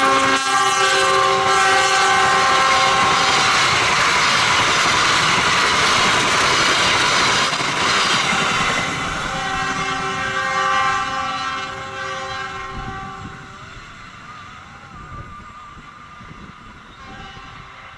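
Train passing at speed with its wheels clattering on the rails and its horn sounding: a long horn note at the start and another around ten seconds in. The rushing noise then fades away over the last several seconds.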